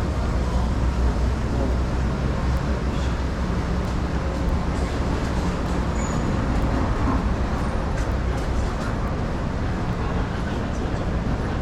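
Busy street ambience: a steady low engine rumble from vehicle traffic, heaviest in the first half, with faint voices of passers-by.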